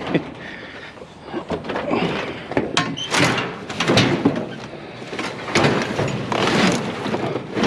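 Repeated knocks, clanks and scraping as a folding metal chair is shifted and pushed into place on a loaded scrap trailer, several sudden impacts among longer scraping rasps.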